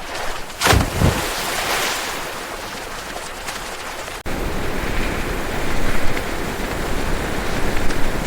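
A rushing noise with a sudden loud whoosh about a second in. About four seconds in it cuts off sharply and gives way to a fuller, deeper rush.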